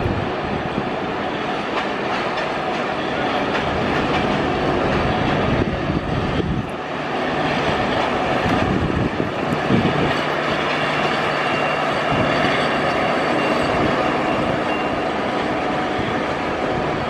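Steady rumble of a train on the tracks, with faint rail clatter and a few thin steady whines; the level dips briefly about a third of the way in.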